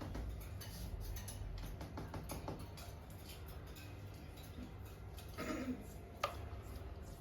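Pet cockatiels fidgeting, with many light clicks, taps and scratches over a steady low hum. A short, louder rustle comes about five and a half seconds in, followed by one sharp click.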